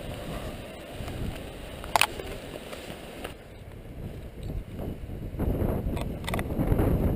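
Wind and movement noise rumbling on a body-worn action camera's microphone while running on a dirt trail, with one sharp click about two seconds in and the rumble growing louder near the end.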